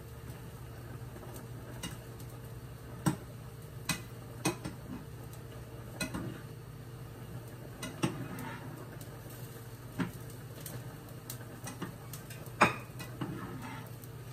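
Metal cooking utensils clinking and knocking against pots and pans on a stove, a sharp clink every second or two, the loudest about three-quarters of the way through, over a steady low hum.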